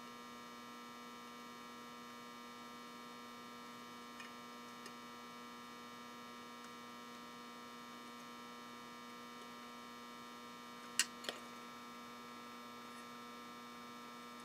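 Steady electrical hum made of several fixed tones, with a few faint ticks and, about eleven seconds in, two sharp clicks a fraction of a second apart from needle-nose pliers bending transistor leads on a metal heat sink.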